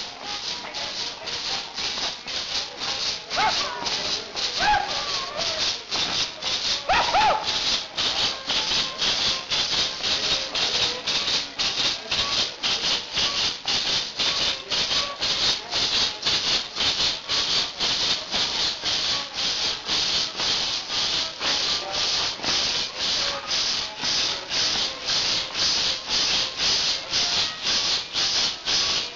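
Carnival dancers' hand-held rattles (maracas) shaken together in a steady, even beat of about two to three strokes a second. A few short shouts are heard in the first several seconds.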